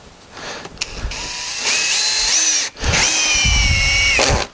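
Cordless drill driving a screw into a Western Red Cedar 2x6 bench board: a motor whine that climbs in pitch in steps for about a second and a half, a short pause, then a second steadier run of about a second that sags slightly before cutting off.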